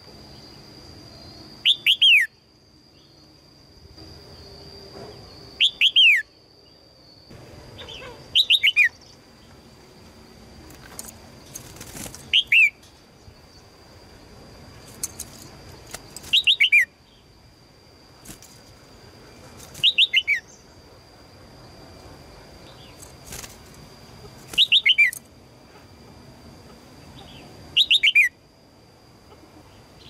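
Red-whiskered bulbul calls: short, sharp clusters of two or three quickly falling notes, repeated eight times about every three to four seconds. These are the chattering calls of a female calling for a male.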